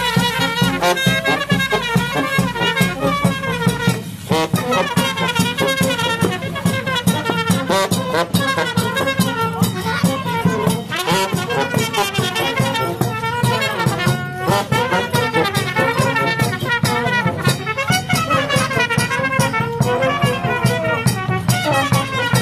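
Village brass band playing a tune: trumpets carry the melody over a helicon bass line and a steady drum beat.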